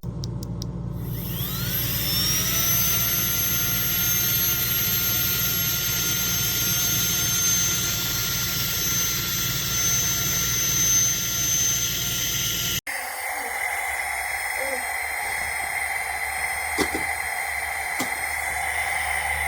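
Small battery-powered electric air pump spinning up about a second in and running with a steady high whine. After an abrupt cut about two-thirds through, it runs on with a different, lower pitch.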